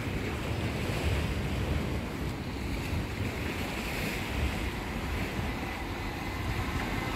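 Sea waves washing against a sea wall, with wind buffeting the microphone as a steady low rumble.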